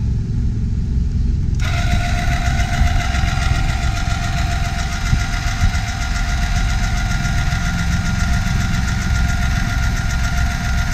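Electric tongue jack on a travel trailer running as it raises the trailer tongue: a steady motor whine that starts about a second and a half in and stops just after the end. A steady low rumble from the Jeep's idling engine runs underneath.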